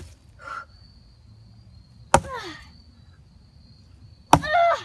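An axe chopping into a birch log, struck twice about two seconds apart, each strike a sharp single chop. Each chop is followed by a short voice sound that falls in pitch.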